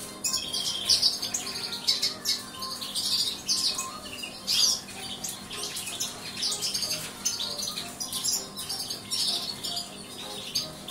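Caged greenfinches chirping and twittering: a dense run of quick, high calls, with a few short clicks among them.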